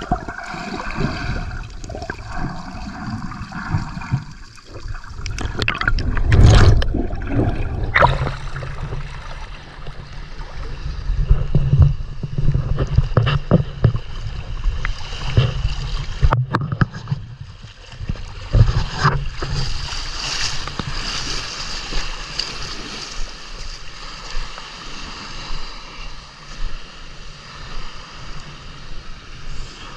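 Water sloshing and gurgling around an action camera near the surface while snorkelling, with irregular splashes, the loudest a few seconds in.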